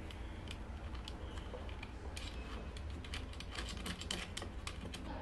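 Scattered light clicks and taps, coming faster in the second half, of a handpiece's cable connector being handled and plugged into an oxygen facial machine, over a steady low hum.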